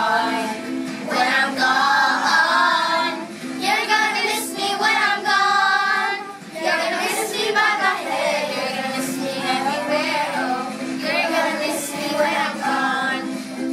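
A group of children singing a song together, voices rising and falling through the phrases with short breaks between lines.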